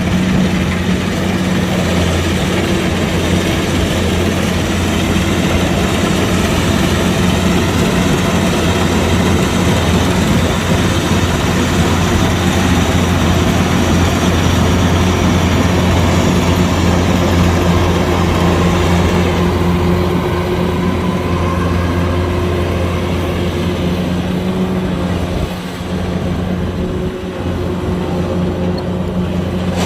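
Kubota DC-105X combine harvester running steadily at work, its diesel engine giving a low, even hum with the rush of the threshing machinery over it. The high rushing eases about two-thirds of the way through, and the level dips briefly near the end.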